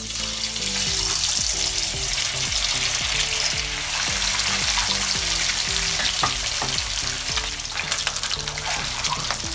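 Boiled eggs deep-frying in hot oil in a wok, a loud steady sizzle that starts suddenly as they are lowered in on a wire strainer.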